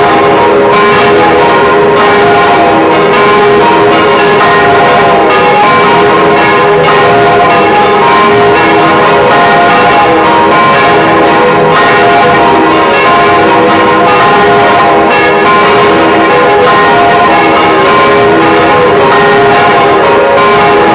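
Several swinging church bells cast by the Causard foundry of Colmar, ringing together in a full peal heard from inside the belfry. Their strokes overlap into a continuous, very loud wash of bell tones with no pause.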